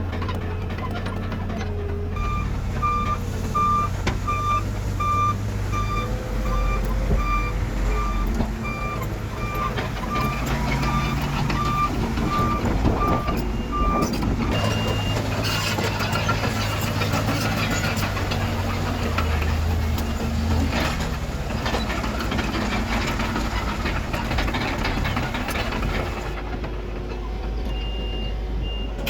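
Heavy diesel earthmoving machinery running, with a reversing alarm beeping steadily, about one and a half beeps a second. The alarm starts about two seconds in and stops about halfway through, and the engine sound grows busier after that.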